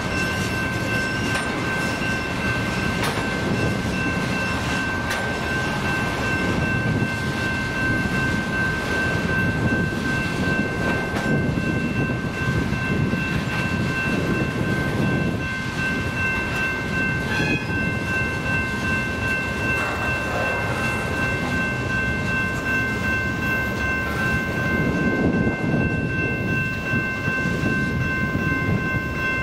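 Freight train of tank cars rolling past: steady rumble and steel-wheel noise from the cars. Over it a grade-crossing bell rings, heard as steady high tones that carry on after the last car has gone by.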